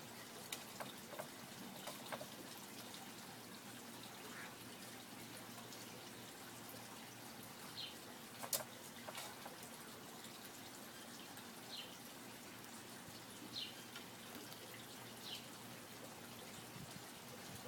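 Faint backyard ambience: a steady hiss with scattered small clicks and ticks, and a few short, high, downward chirps in the second half.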